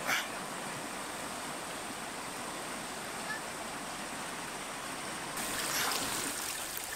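Shallow mountain river rushing steadily over stones and rapids, with a short sharp knock just after the start.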